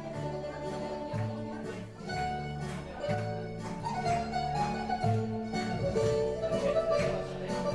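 Instrumental background music with a steady beat, sustained melody notes and a moving bass line.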